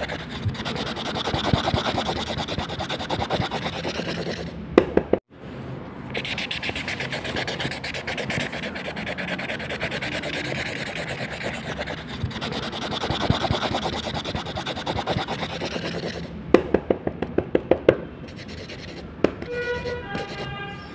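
Felt brush-pen tip scratching and rubbing steadily across paper as areas are coloured in, with a few sharp clicks around five seconds in and again a little after the middle. Near the end a short run of stepped electronic tones sounds.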